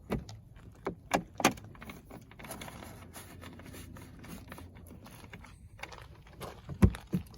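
Tools and small parts clinking and knocking while a generator is put back together with 10 mm bolts: a few sharp clicks in the first second and a half, then a louder cluster of knocks near the end.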